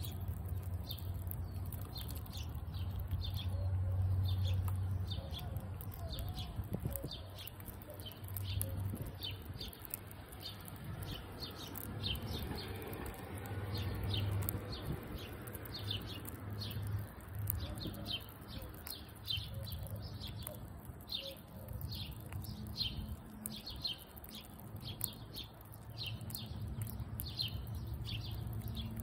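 A squirrel chewing and crunching a crispy sprouted almond close up, with fine crackly clicks. A small bird chirps over and over in the background, about one to two high chirps a second.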